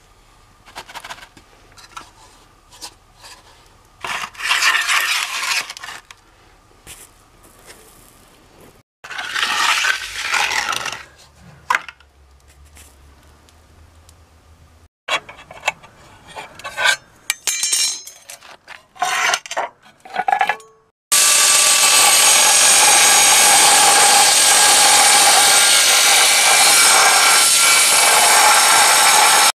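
A hand float scraping over wet concrete in short strokes, with scattered knocks, then about 21 seconds in an angle grinder starts cutting through a white board, a loud steady whine that is the loudest sound.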